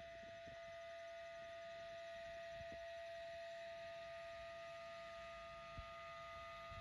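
Faint steady hum made of several even tones, with a few soft taps.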